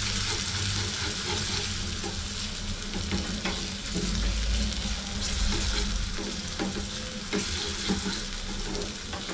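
Black mustard seeds and garlic-chilli paste sizzling in hot oil in a small tempering pan, stirred with a spoon that scrapes against the pan. A few sharp ticks stand out over the steady sizzle.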